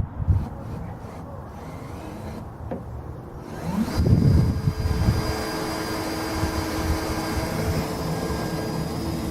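Electric drill motor handled briefly, then spinning up about four seconds in and running at a steady pitch while drilling a mounting hole through a pickup truck's bed floor.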